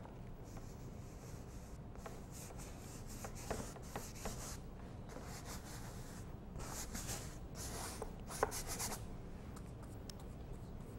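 Paintbrush scrubbing oil paint onto a stretched canvas in a run of short, scratchy strokes, stopping about nine seconds in.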